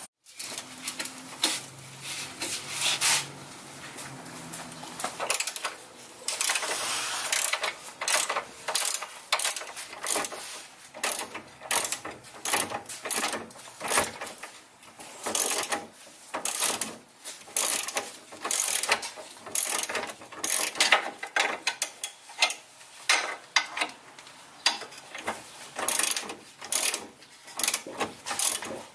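Hand ratchet wrench clicking in repeated bursts as a suspension bolt on the Jeep's rear axle is worked loose.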